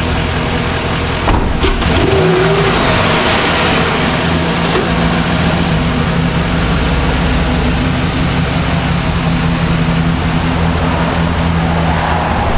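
Chevrolet 5.3-litre V8 in a 2011 Silverado 1500 running with a steady low hum while the truck is reversed out of the bay. A door shuts about a second and a half in, and the engine noise swells and roughens for a few seconds after.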